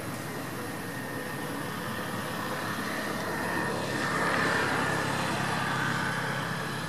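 Steady motor engine noise from passing traffic, growing louder about four seconds in and easing off again toward the end.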